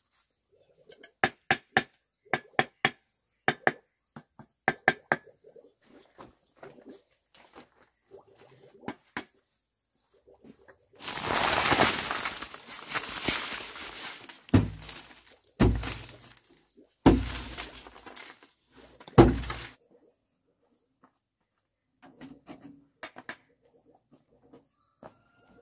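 A trowel taps bricks into wet mortar, giving a run of sharp ringing clinks early on. Then damp mortar mix is poured onto a plastic tarp with a rushing sound, followed by four heavy thumps as more loads are dropped.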